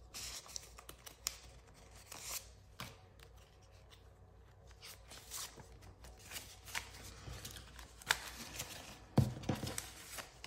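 Paper banknotes and cash envelopes being handled: scattered rustles, crinkles and light taps, with a louder thump near the end.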